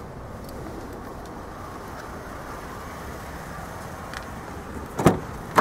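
Steady background noise, then two sharp clunks about half a second apart near the end, from the SUV's door being handled.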